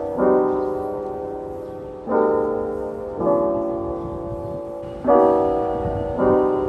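Background piano music: soft chords struck one after another about every one to two seconds, each ringing and fading before the next.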